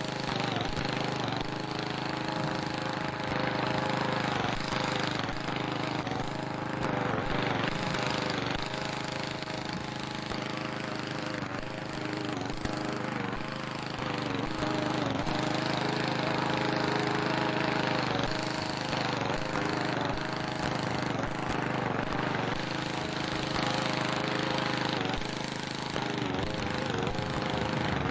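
A small engine running steadily, with a heavy hiss over it.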